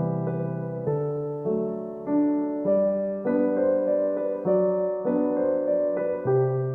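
Background music: a gentle solo piano piece, with notes and chords struck in a slow, steady pattern.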